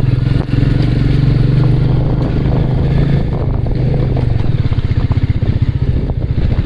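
Single-cylinder motorcycle engine running under steady throttle, then easing off about four and a half seconds in to a slower, evenly pulsing exhaust beat.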